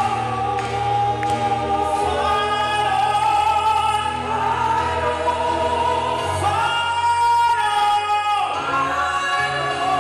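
A women's gospel vocal group singing in harmony through microphones, with a long held chord about six seconds in.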